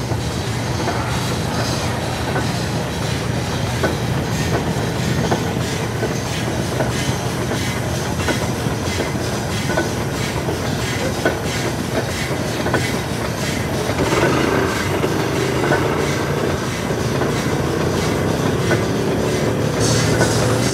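Case steam traction engine running, with a steady low hum and its exhaust chuffing in an even rhythm. It grows a little louder about fourteen seconds in.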